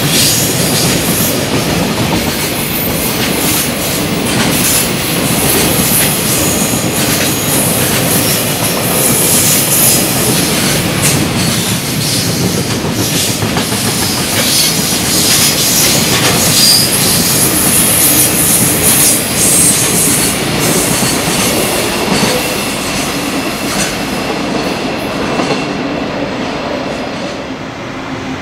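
Long freight train of container wagons rolling past at speed, its wheels clattering over the rail joints in a dense run of clicks, with some wheel squeal. Near the end it gives way to a quieter, steady background rumble.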